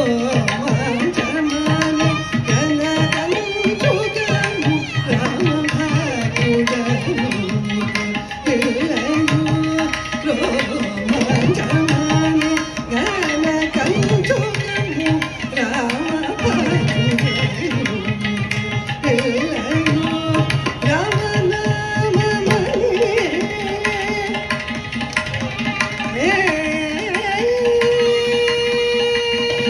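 Carnatic vocal music: a woman sings a winding melodic line with violin, and the mridangam and ghatam play dense rhythmic strokes underneath. Near the end a single long note is held.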